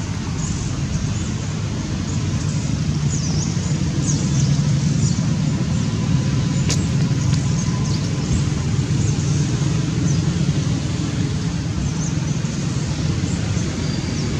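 Steady low rumble of outdoor background noise, with faint short high chirps scattered through and a single sharp click about seven seconds in.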